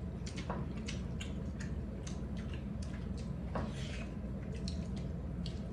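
Wet chewing and mouth smacking of people eating, with scattered small clicks, over a steady low hum.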